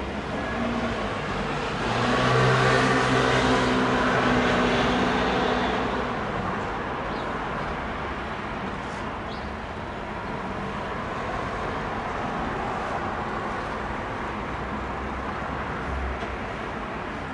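Jet noise of a Luftwaffe Airbus A310's twin turbofan engines as the airliner flies past overhead. It swells to its loudest about two to six seconds in, with a humming whine over the rush, then eases to a steady rumble as the aircraft moves away.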